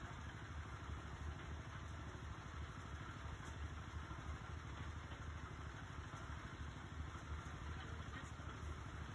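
Small gas engine of a portable concrete mixer running steadily at a low, even idle.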